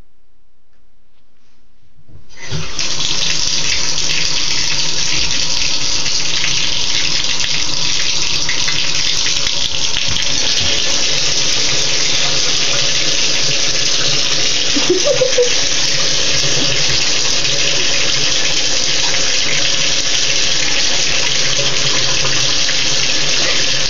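Bathtub tap turned on about two and a half seconds in, then water running steadily from the faucet into the tub.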